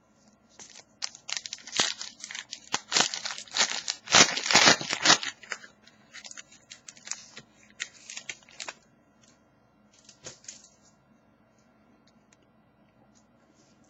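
Trading card pack wrapper being torn open and crinkled: a dense run of sharp tearing and crackling from about a second in, thinning to scattered rustles and dying away about ten seconds in.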